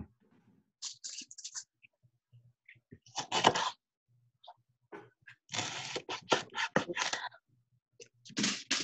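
Rustling and knocking of a plastic salad spinner basket and freshly spun lettuce being handled and tipped into a wooden salad bowl, in several short bursts.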